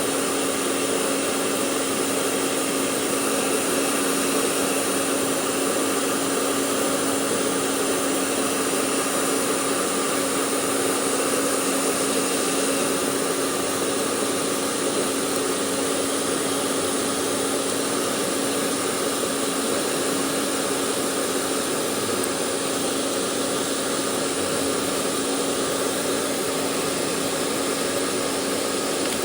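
Handheld hairdryer running steadily, a constant blowing rush with a steady motor hum.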